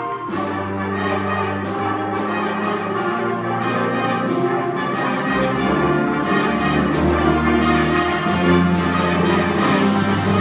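School concert band playing: sustained low wind and brass chords under sharp struck percussion notes repeating about three times a second, beginning just after the start.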